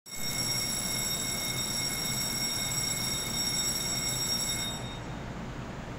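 A steady, high-pitched electronic departure warning tone, a buzzer-like sound, sounds over a low steady hum and cuts off suddenly near the end.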